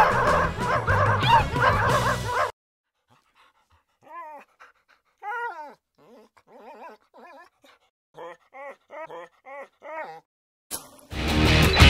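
Dog whimpers and short yips, a series of separate pitched calls that come quicker near the end. Background music with dog barks plays for the first couple of seconds, and loud rock music with electric guitar starts about eleven seconds in.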